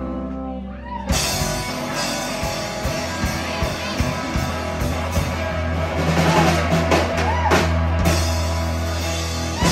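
Live rock band playing loud: distorted electric guitar, bass guitar and drum kit with crashing cymbals and drum fills over held chords and a long low bass note, a drawn-out closing crescendo to the song.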